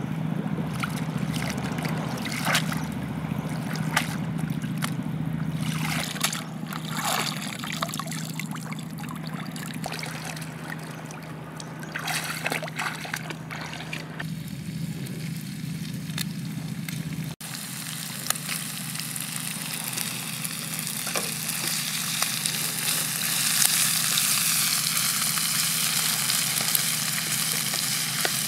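Water splashing and trickling as broccoli florets are rinsed by hand in a woven bamboo basket. Then, after a sudden cut, squid rings and broccoli sizzling in a frying pan as they are stir-fried with a wooden spatula, the hiss growing louder near the end.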